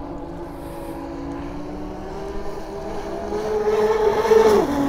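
Twin brushless electric motors of a 94-inch (2.35 m) MHZ RC speedboat whining at high speed as it runs on the water. The whine rises slowly in pitch and grows louder, then drops sharply in pitch near the end.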